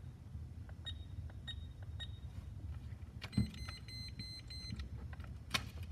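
ToolKitRC M4Q smart charger beeping as its control wheel is pressed: three short high beeps, then a longer beep lasting about a second and a half as the charge is stopped. A sharp click follows near the end.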